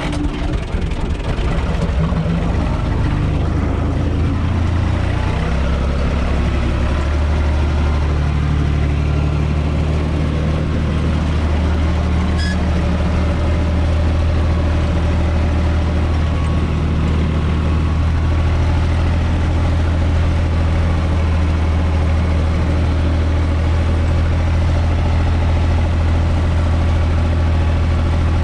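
UTB 445 tractor's three-cylinder diesel engine running steadily, heard from inside its cab as the tractor drives slowly over tilled ground; the engine note shifts a few seconds in and then holds steady.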